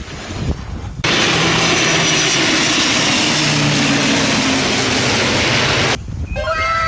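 Airplane engine sound effect: a loud, even jet-like rush that starts abruptly about a second in and cuts off suddenly about five seconds later. It is followed near the end by several falling whistle-like tones.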